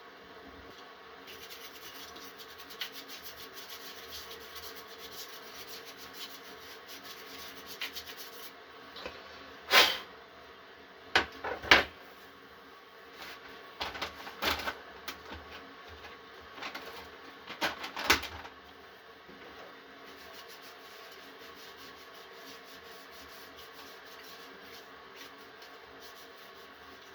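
Hands working on a PC power supply: scratchy rubbing, broken from about ten seconds in by a string of loud, sharp knocks and clacks that last several seconds, then more rubbing.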